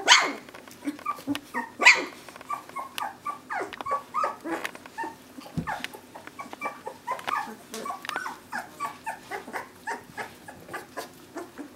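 Young poodle puppies, two to three weeks old, whimpering and squeaking in short high calls, several a second. Two louder, sharper sounds stand out, one at the start and one about two seconds in.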